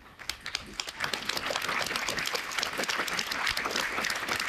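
Audience applauding, many hands clapping together, swelling about a second in and holding steady.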